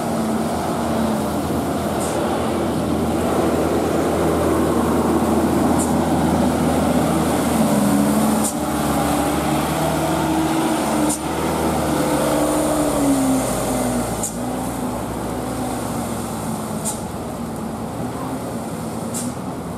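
Diesel engine of a loaded Mitsubishi light truck labouring as it climbs past close by, its note rising and falling, with a few brief sharp ticks over it.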